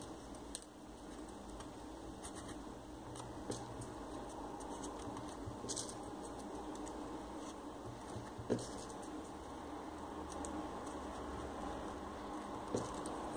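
Faint rustling and scratching of folded paper 3D origami units as they are picked up and pressed into the rows of the paper model, with a few short, sharp ticks scattered through it.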